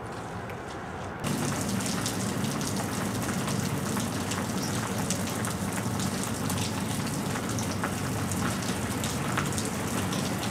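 Steady rain falling on pavement, with a dense patter of small drop ticks. It comes in abruptly about a second in.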